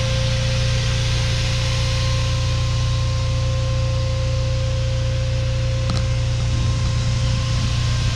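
The 2008 Honda Civic Si idles while its new 12-inch Spal electric radiator fan runs as a steady, super loud rush of air over a low hum. The fan is on because the engine has reached running temperature. There is a brief light click about six seconds in.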